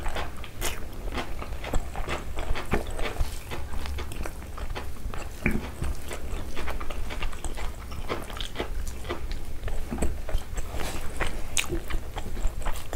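Chewing and mouth sounds of two people eating rice with chicken liver curry and egg curry by hand. A dense, irregular run of short wet clicks and smacks sounds several times a second, over a low steady hum.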